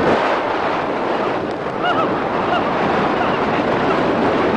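Wind rushing over the camera microphone during a tandem parachute descent under an open canopy: a loud, steady rush of air.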